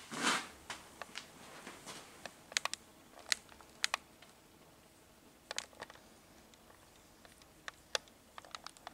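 Cat grooming itself: faint, irregular small clicks of licking, with a short rustle of movement right at the start.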